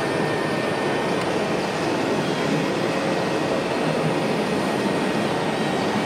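Steady, even din of a busy exhibition hall, with a faint high steady whine over it.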